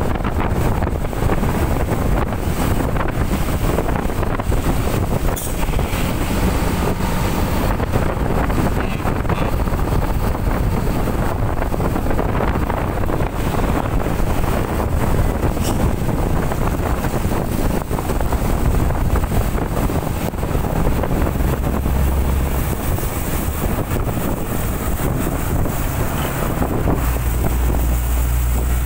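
Strong wind rushing and buffeting the microphone in a storm, a steady loud noise with deeper rumbling gusts near the end.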